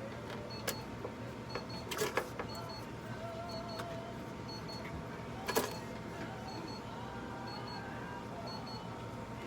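Steady hum of a nebulizer compressor running during an inhalation treatment, with a faint high double beep repeating about once a second and a few sharp clicks.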